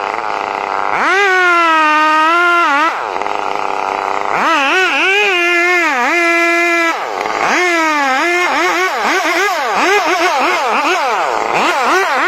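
Chainsaw cutting through a large tree trunk, its engine pitch dipping under load and climbing back again and again, with quicker swings near the end.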